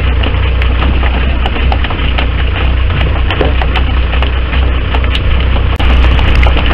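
Wind and boat noise on the camera microphone at sea: a loud, steady low rumble with a rushing haze and irregular crackling clicks, the crackles thickest near the end.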